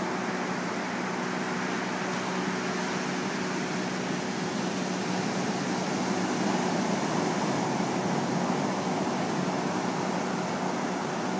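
Ocean surf breaking on a rocky beach: a steady rush of waves that swells a little about two-thirds of the way through, with a faint steady low hum underneath.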